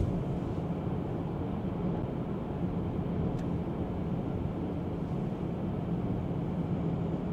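Steady road and tyre noise inside the cabin of a 2024 Tesla Model 3 Performance cruising on Full Self-Driving; being electric, it gives no engine sound, only a low, even rumble.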